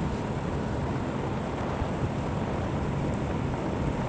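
Motorcycle riding at a steady speed: engine and road rumble mixed with wind on the microphone, steady throughout.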